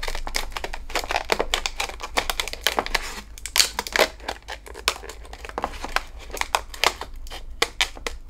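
Scissors cutting through a clear plastic blister pack: an irregular run of sharp snips and crackles of the stiff plastic.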